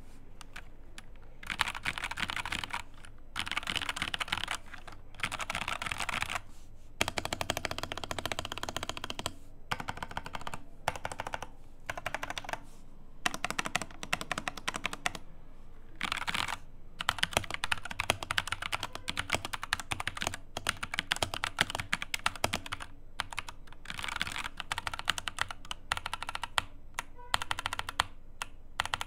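Ajazz AK870MC mechanical keyboard typed on in its stock, unmodded state. The keys clack in fast runs of one to three seconds, with short pauses between them.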